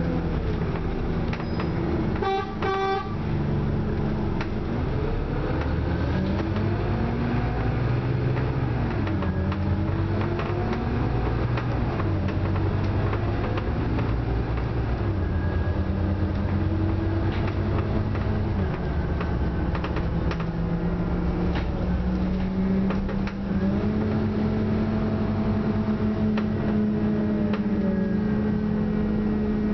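Cabin sound of a Scania OmniCity bus under way: its diesel engine note repeatedly rises as the bus gathers speed and drops back as it shifts gear or slows. A short horn toot sounds about two and a half seconds in.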